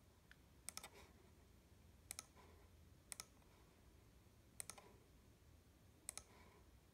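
Faint clicks of a computer mouse button, each press coming in a quick pair, about five times at irregular intervals, as wire corners are set in a schematic drawing program.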